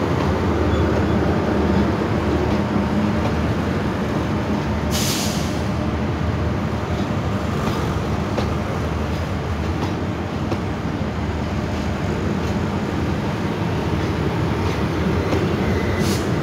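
Passenger coaches of the Eastern & Oriental Express rolling slowly past on the track, a steady low rumble of wheels on rails with faint clicking. A brief hiss comes about five seconds in.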